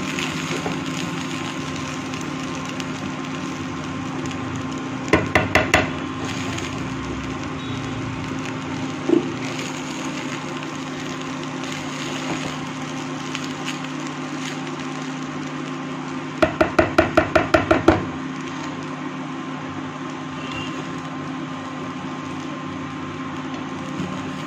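A spatula tapped against the rim of a frying pan while jeera rice is being mixed: a quick run of about four taps, a single knock a few seconds later, then a rapid run of about nine taps near the middle. A steady hum runs underneath.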